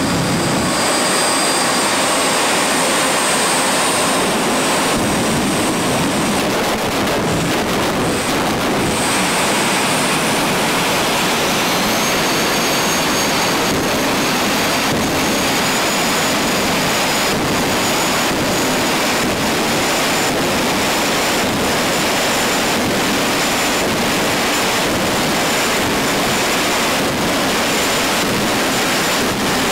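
Jet-powered drag-racing funny cars' turbine engines running at the starting line: a steady, loud roar with a high whine, which rises in pitch about ten seconds in.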